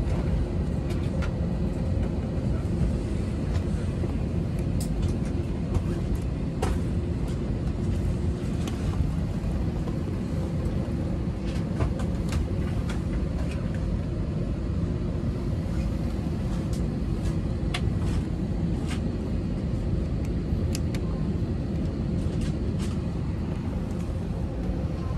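Steady low rumble of aircraft cabin noise, with scattered light clicks and knocks.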